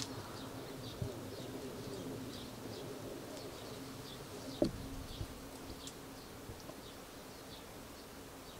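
A flying insect buzzing close by with a steady hum that fades in the second half, while small birds chirp repeatedly in the background. A soft low thump comes about four and a half seconds in.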